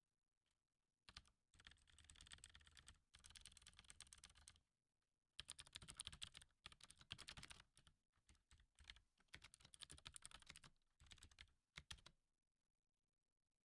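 Faint typing on a computer keyboard, rapid keystrokes in several bursts with short pauses between them, stopping near the end.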